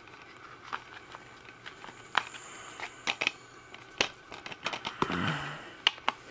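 Paper insert cards and a plastic 4K disc case being handled: scattered small clicks and taps, with a short rustling scrape about five seconds in.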